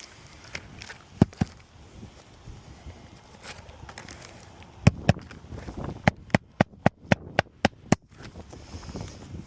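Hammer driving roofing nails into an asphalt shingle: two pairs of sharp blows, then a quick run of about eight strikes, roughly four a second, near the end.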